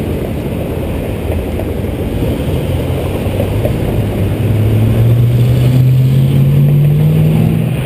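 A motor vehicle engine accelerating close by, its pitch rising steadily from about four seconds in and loudest near the end, over a steady low rumble of traffic.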